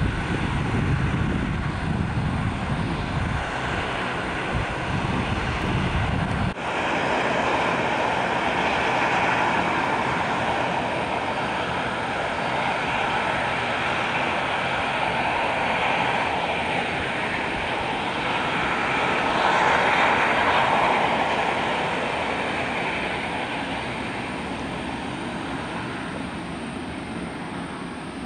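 Bombardier Dash 8 Q400 turboprop taxiing, its two Pratt & Whitney PW150A engines and six-blade propellers making a steady, hissing whine. The sound swells to its loudest about twenty seconds in and eases off near the end. A deep rumble under it stops abruptly about six seconds in.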